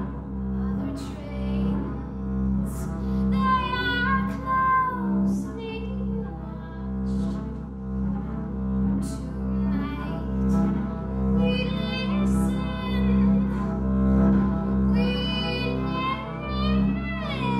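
Double bass played with the bow in steady, regular swelling strokes, with a woman's voice singing long, gliding phrases over it a few times.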